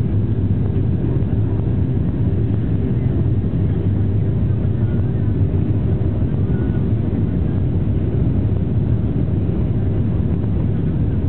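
Boeing 737-700's CFM56-7B jet engines at takeoff thrust, heard from inside the cabin during the takeoff roll: a loud, steady low rumble.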